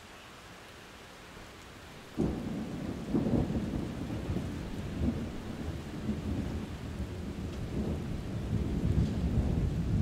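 Steady rain hissing; about two seconds in, thunder breaks in suddenly and goes on as a long, low rolling rumble that swells and eases several times.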